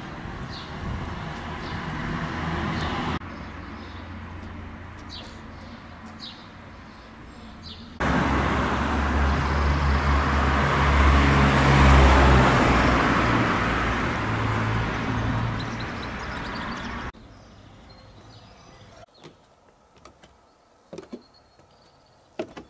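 Outdoor street ambience in several cut-together pieces: a few short bird chirps over a low hum, then a car drives past close by, swelling to a loud rush about halfway through and fading away. Near the end it goes quiet, with scattered light clicks like footsteps.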